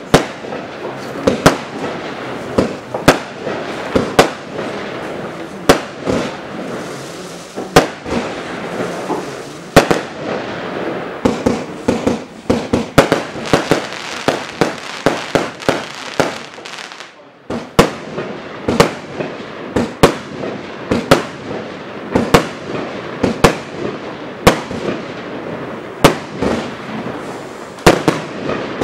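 Ardi Mad Fire Box, a 100-shot 30 mm firework cake, firing: sharp bangs every second or so, with crackle and hiss between them, and a short lull about 17 seconds in.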